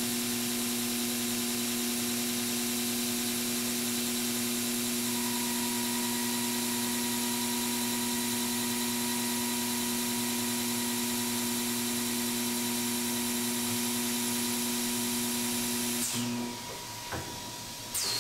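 Commutator lathe running a machining cycle: a steady motor whine with a high hiss, and a higher tone that joins about five seconds in. About two seconds before the end it stops, followed by a few clicks and knocks from the machine.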